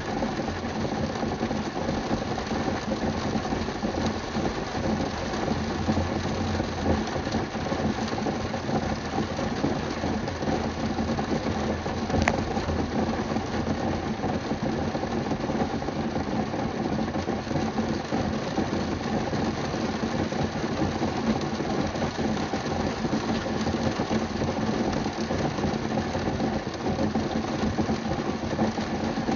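Heavy rain pattering densely and steadily on a car's roof and windows, heard from inside the car, with one sharp click about twelve seconds in.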